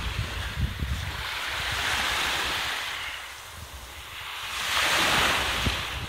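Small sea waves breaking and washing up a sandy shore: two rushes of surf hiss a few seconds apart, with a quieter lull between them.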